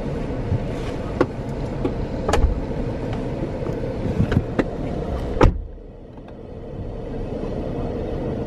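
Car door shutting with a sharp thud about five and a half seconds in. Before it there is open-air background noise with scattered clicks and knocks; after it only the muffled low hum of the closed cabin remains.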